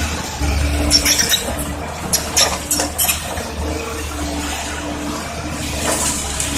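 Caterpillar 320D tracked excavator's diesel engine running steadily, with a run of sharp metallic clanks and clinks about a second in, more between two and three seconds, and one near the end.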